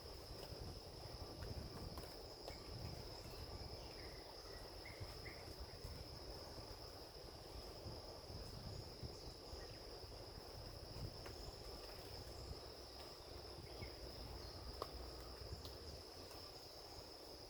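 A steady, unbroken high-pitched trill from a chorus of insects, crickets or similar, over a low rumble, with a few faint short chirps about four to five seconds in.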